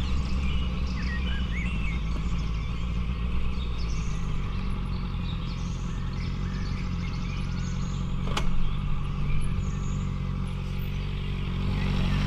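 Honda CBR650F's inline-four engine running at low revs on a rough dirt trail. A single sharp knock comes about eight seconds in; the rider thinks the fairing struck the ground and was damaged.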